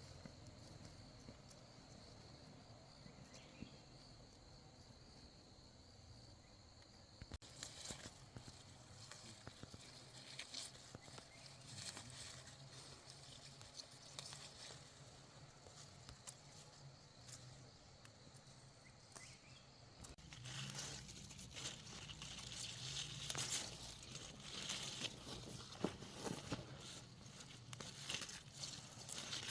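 Rustling, crinkling and small snapping and tearing sounds of plants being handled, with light footsteps, busier in the last third. A faint steady high tone runs through the first several seconds and stops.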